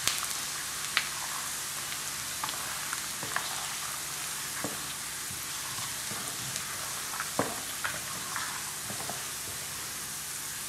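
Minced garlic and Sichuan pepper frying in hot oil in a nonstick pan: a steady sizzle with scattered sharp clicks and pops as a wooden spatula stirs.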